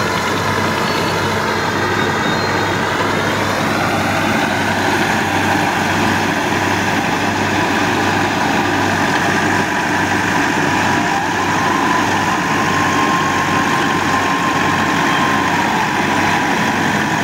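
Massey Ferguson 385's four-cylinder diesel engine running steadily under load, driving a PTO straw chopper whose high whine runs over the engine hum. The whine rises in pitch a few seconds in.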